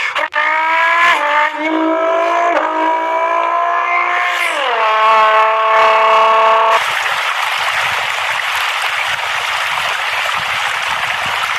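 Car engine revving, its pitch climbing in several steps and then falling away. About seven seconds in it gives way to a steady rushing noise with no clear pitch.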